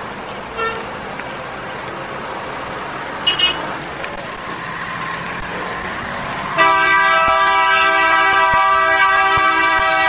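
City traffic noise with short car-horn toots, once and then twice in quick succession. About two-thirds of the way through, a loud, steady horn note begins and is held without a break.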